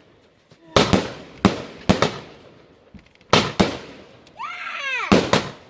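Fireworks going off: a string of sharp bangs, several in quick pairs, about seven in all, with a warbling whistle of rising and falling pitch near the end.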